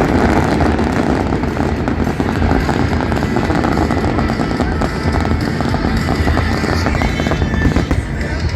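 Fireworks bursting and crackling densely, mixed with loud rock music playing throughout.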